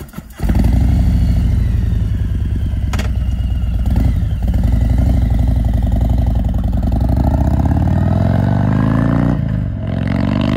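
Harley-Davidson V-twin motorcycle engine starting up about half a second in and running with a steady throb. It is revved up twice near the end, the pitch rising each time.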